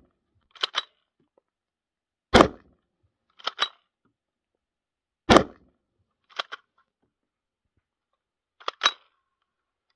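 Two shots from a Renegade MKII straight-pull .223 rifle with a 12.5-inch barrel, about three seconds apart, each a sharp crack. Between the shots come quieter quick double clacks of the straight-pull bolt being pulled back and pushed forward: once less than a second in, about a second after each shot, and again near the end.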